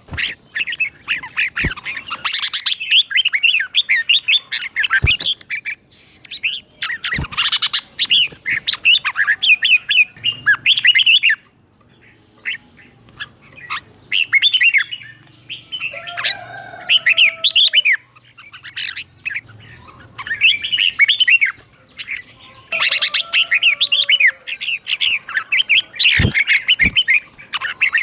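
Red-whiskered bulbul song: bursts of rapid, chattering whistled notes broken by short pauses, with a few lower, harsher squawking calls in the second half. A few sharp clicks are heard among the song.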